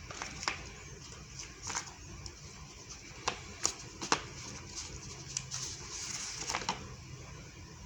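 Packaging being handled during an unboxing: scattered clicks and short rustles of cardboard and plastic, with a brief longer rustle past the middle.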